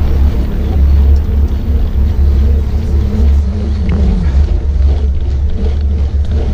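Loud, steady low rumble of wind buffeting a bike-mounted action camera's microphone while riding a mountain bike along a paved lane, mixed with tyre and riding noise.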